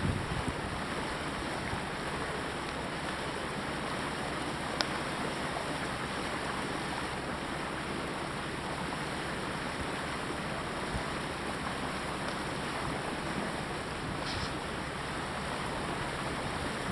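Steady wash of water and air past a sailboat motoring slowly along a canal, with the low hum of its engine underneath. A single faint click about five seconds in.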